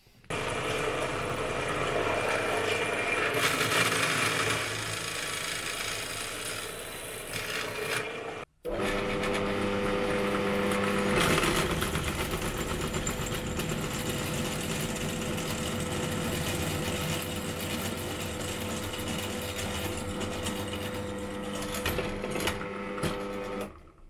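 Benchtop drill press running and drilling holes in a copper busbar clamped in a vise. The steady motor and cutting sound breaks off suddenly for a moment about eight and a half seconds in, then runs on with a steadier hum.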